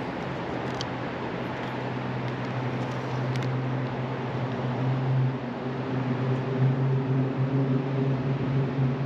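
A steady low motor hum, growing louder after about four seconds, over a constant rushing noise.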